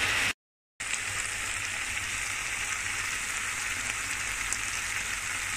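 Chicken strips and onion sizzling steadily in a hot frying pan with soy sauce and wine vinegar, the liquid cooking off. The sound drops out briefly just under half a second in.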